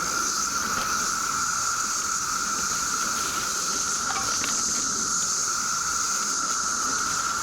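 Chorus of 17-year periodical cicadas: a dense, steady drone that never breaks, with a thinner, higher hiss above it.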